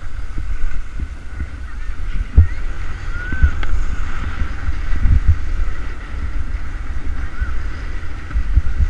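Wind buffeting an action camera's microphone as the wearer slides down a ski slope: a loud, gusty low rumble with occasional thumps.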